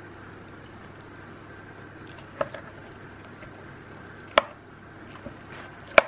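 A metal spoon clinking against a ceramic bowl of muesli a few times as it scoops, the loudest clink about four seconds in, each one ringing briefly.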